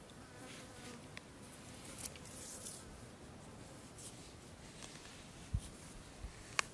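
Faint scratching and grinding of a wooden twig being pushed and worked down into sand, with two soft low thumps and one sharp click near the end.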